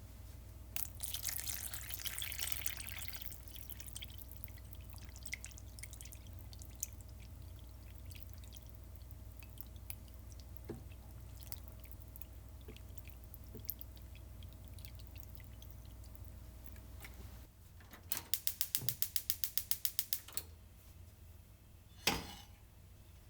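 Kitchen work sounds over a faint steady hum. A short rush of pouring or splashing water comes about a second in, then a run of rapid, evenly spaced clicks or taps for about two seconds later on, and a single sharp knock near the end.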